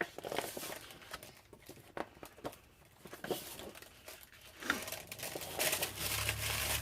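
Sheets of scrapbooking paper being sorted and laid out on a table: scattered rustling, sliding and light taps, busier near the end. A low hum comes in near the end.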